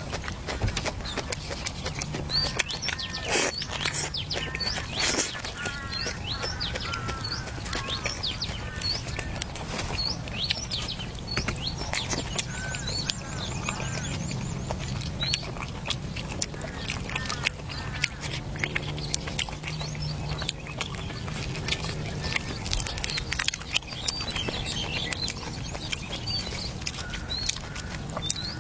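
Birds chirping over and over, many short high calls throughout, with scattered knocks and clicks.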